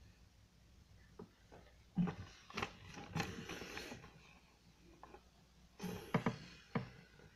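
A sheet of paper handled close to the microphone, rustling and crinkling in two bursts: one about two seconds in, the other near the end.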